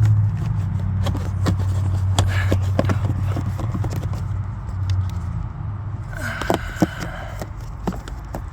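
Plastic clicks and scrapes as a cabin air filter is pushed into its housing, over a steady low hum that fades about five seconds in.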